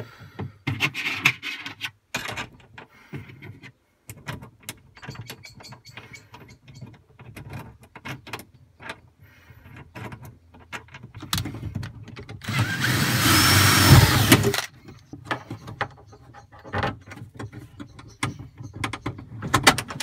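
Hand-handling noise of nylon webbing being threaded through a metal strap against a plastic kayak hull: scattered rubbing, clicks and knocks, with a louder steady rushing noise lasting about two seconds a little past the middle.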